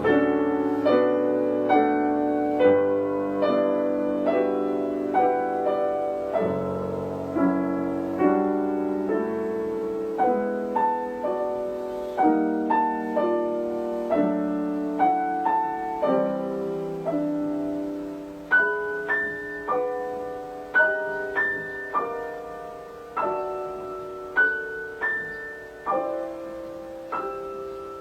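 Solo piano playing a slow, quiet piece, single notes and chords struck about once or twice a second and left to ring, with higher notes coming in during the second half.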